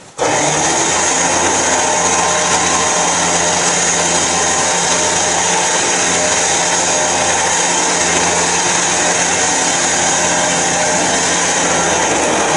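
Electric trailer winch motor running steadily under load, reeling in its cable to pull a race car up onto the trailer. It starts abruptly and holds an even whir.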